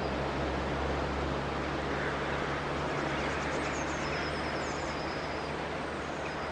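Outdoor location ambience: a steady rushing background with faint bird chirps high up, mostly around the middle.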